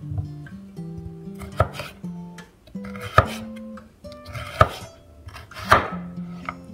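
A chef's knife slicing yams into chips on a wooden chopping board: four sharp strikes of the blade through the yam onto the board, roughly every second and a half, over background music.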